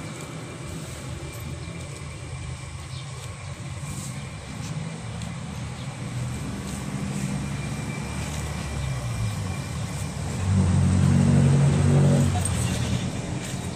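A motor vehicle's engine running steadily, growing louder for a couple of seconds near the end.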